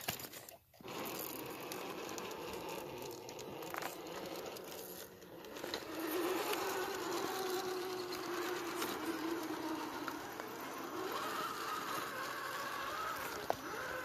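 Electric motor and geared drivetrain of an Axial SCX10 III Jeep Gladiator RC rock crawler whining as it crawls over rock, the pitch rising and falling with the throttle, with scattered crunches and scrapes of tyres on stone.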